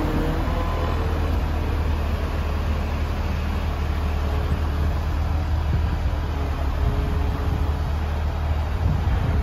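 Steady low drone of the crane truck's engine running to drive the hydraulics of a Palfinger truck-mounted knuckle-boom crane while the boom moves.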